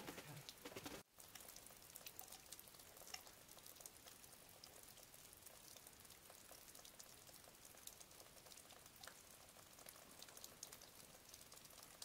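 Meltwater dripping from the icicles of a frozen waterfall: a faint, irregular patter of many small drops.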